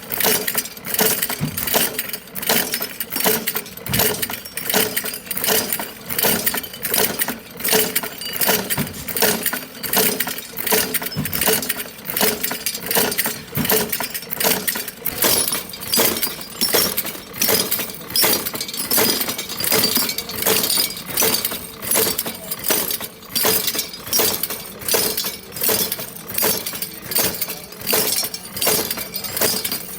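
Hard objects clinking and clattering together in a steady, repeating rhythm of about one and a half knocks a second.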